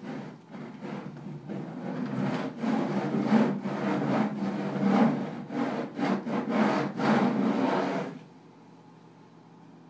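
A bundle of 480 pens bound together scraping across paper in quick, repeated rough strokes, stopping abruptly about eight seconds in.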